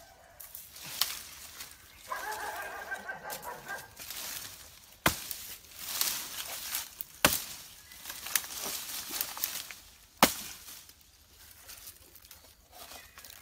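A machete chopping through a fallen banana trunk: four sharp strikes a few seconds apart, with rustling of leaves and handling between them. About two seconds in, a chicken calls for a second or two in the background.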